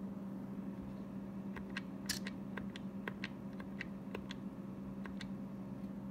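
Steady hum of a homemade induction annealer with its cooling fan on, and about a dozen light, irregular clicks between roughly a second and a half and five seconds in as a front-panel control knob is turned to set the anneal time.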